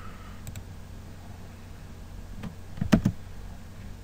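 Computer keyboard keystrokes: a couple of faint clicks about half a second in, then a louder cluster of key presses around three seconds in, over a low steady hum.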